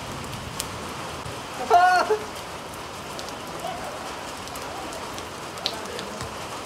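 Heavy rain falling steadily, a constant hiss, with one short loud shout from a person about two seconds in.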